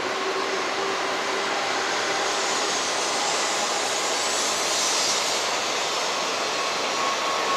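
N700-series Shinkansen train running along the platform track: a steady rushing of wheels and running gear that swells about five seconds in, with a faint steady whine.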